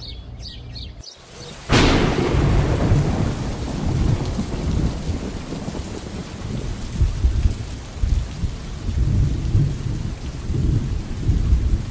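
A sudden thunderclap about two seconds in, then steady rain with low rumbles of thunder rolling on.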